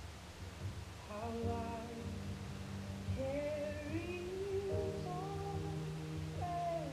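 Calm background music: a slow melody with gliding notes over held low tones, coming in about a second in.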